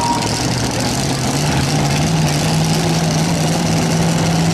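Light Pro Stock pulling tractor's diesel engine idling, its speed stepping up slightly about a second in and then holding steady.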